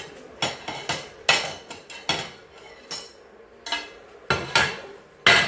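Kitchen utensils clattering and knocking against a bowl and board as chopped vegetables are tipped into a mixing bowl: a dozen or so sharp, irregular knocks, the loudest near the end.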